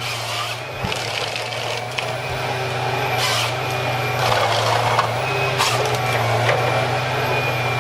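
Forestry harvester running steadily at work on a tree, its engine a continuous hum, with a few short hissing or crackling bursts from the head or hydraulics along the way.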